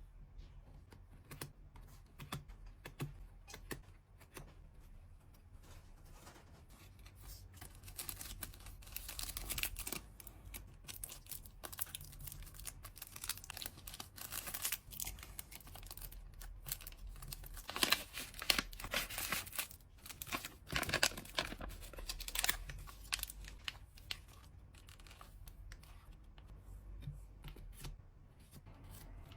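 Packing materials handled by hand, tearing and crinkling, with scattered small clicks and taps. The handling is busiest and loudest in the middle.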